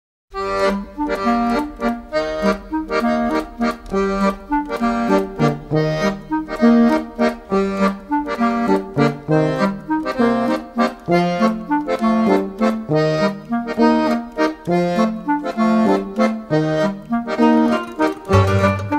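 Instrumental music without singing: a quick, evenly paced run of short notes over a changing bass line.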